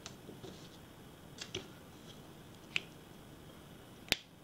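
About five small, sharp clicks and ticks from fingers handling stickers on a paper planner page as they are peeled and pressed down; the sharpest click comes near the end.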